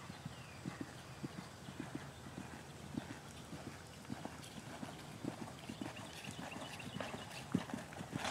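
A horse's hoofbeats on a sand arena footing, a run of dull thuds a few times a second, growing louder near the end as the horse comes close.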